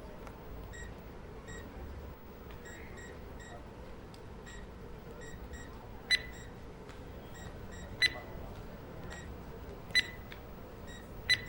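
Hospital ward ambience: short electronic beeps from medical equipment repeating under a second apart over steady room noise, with four louder, sharper beeps about two seconds apart in the second half.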